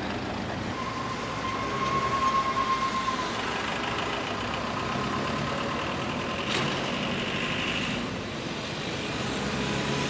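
Engine and road noise of a moving bus heard from inside the cabin. A thin high tone is heard for about two seconds near the start, and there is a single sharp click about two thirds of the way through.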